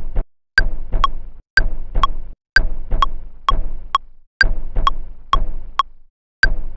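A looped beat of short percussive chops sampled from vinyl, triggered from an Ableton sampler: sharp clicky ticks with a brief ping, each chop trailing a noisy tail that cuts off abruptly, about one chop a second with quicker ticks between, in a slightly off-grid rhythm.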